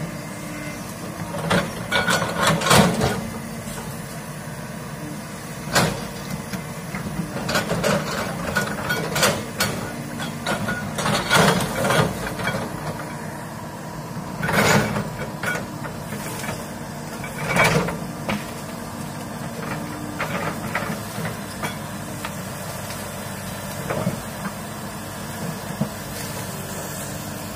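Komatsu crawler excavator's diesel engine running steadily under load while its bucket pushes into trees and brush, with repeated sharp cracks and knocks of wood breaking and branches snapping.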